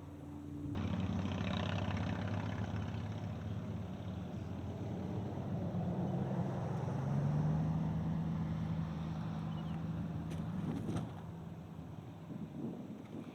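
A motor vehicle passing close by, its engine running with a steady hum. The engine note rises in pitch about halfway through, then holds, and the sound fades near the end.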